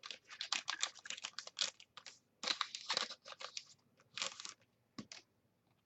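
Football trading cards and their pack wrappers being handled: irregular crinkling and rustling in quick clusters that thin out to a couple of single crackles near the end.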